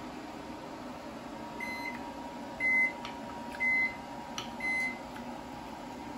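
Microwave oven beeping: four short, high electronic beeps about a second apart, the first one fainter. Light clinks of cutlery on a plate come in between.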